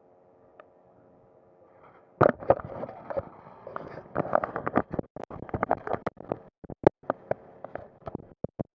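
Handling noise on the camera: after a couple of seconds of faint hiss, loud irregular scraping, rubbing and knocking against the microphone, with brief dropouts.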